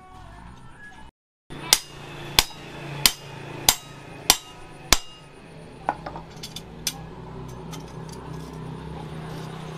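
Hammer striking a steel punch driven into hot plough-disc steel, punching the eye of a forged axe head: six sharp metallic blows about two-thirds of a second apart, then a few lighter taps.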